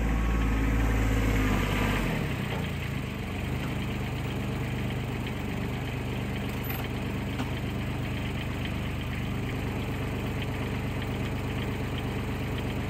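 Kubota RTV utility vehicle's engine running, louder for the first two seconds as it pulls up, then settling into a steady idle.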